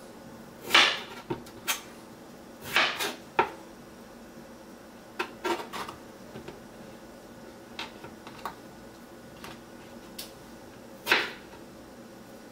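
Chef's knife cutting a peeled potato into wedges on a cutting board: irregular knocks as the blade goes through the potato and meets the board, a few with a short slicing swish, the loudest about a second in and near the end.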